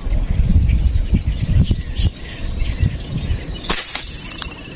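Air rifle fired once at a fish in the water: a single sharp crack about three quarters of the way in. Before it, low rumbling noise on the microphone, with faint bird chirps throughout.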